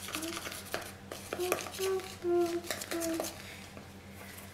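A toddler humming a string of short notes, each a fraction of a second, through the first three seconds, with light clicks and taps from stirring in a mixing bowl.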